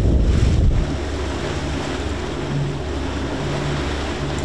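Wind buffeting the microphone over open sea with the wash of waves. About a second in the buffeting drops away, leaving a steadier sea wash under a low hum that swells about once a second.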